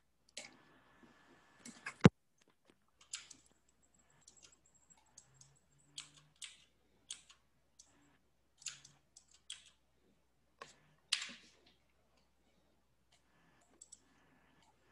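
Scattered clicks of a computer mouse and keyboard, a dozen or so spread irregularly, the sharpest about two seconds in.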